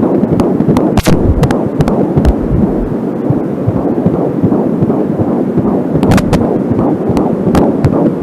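Angelsound home fetal doppler playing heartbeat sounds from a 13-week pregnant belly: a rhythmic whooshing pulse over a steady hiss. Sharp static crackles come in clusters about a second in and about six seconds in, which the uploader puts down to a too-short audio cable.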